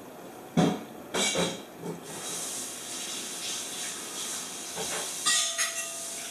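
Two clanks, then garlic butter and clam juices sizzling in a just-grilled pan of large clams, a steady hiss from about two seconds in.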